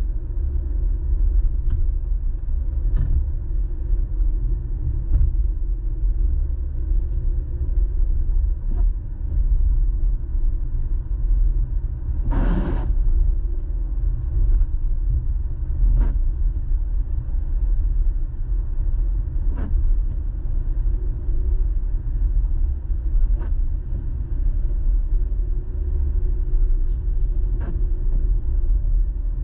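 Car interior road noise while driving on a wet road: a steady low rumble, with scattered light ticks and one brief louder hiss about twelve seconds in.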